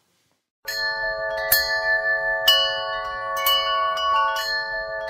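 Bell-like chime music: struck notes about once a second, each ringing on in long overlapping tones, starting after about half a second of silence.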